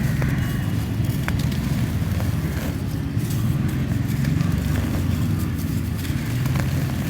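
Lumps of dry red clay dirt being crumbled and crushed by hand on a floor: a continuous low, gritty rumbling crunch with a few small sharp cracks, one about a second in.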